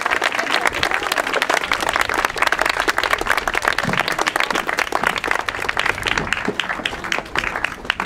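Crowd applauding, the clapping thinning out to scattered separate claps over the last couple of seconds.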